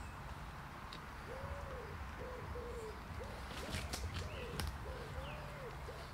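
A pigeon cooing: a run of low, repeated, rounded coos that begins about a second in and carries on to the end. Small birds chirp briefly and a few light clicks come near the middle.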